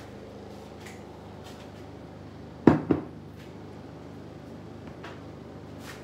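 Two sharp, loud knocks in quick succession about three seconds in, hard objects striking, over a low steady room hum with a few faint clicks.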